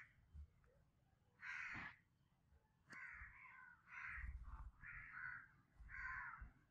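Faint harsh bird calls, about five in a row roughly a second apart.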